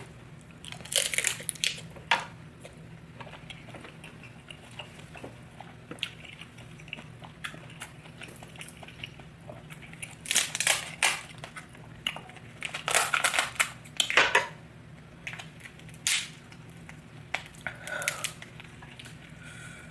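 Lobster shell crunching and cracking close to the microphone, with chewing, in several clusters of crackles separated by quieter stretches.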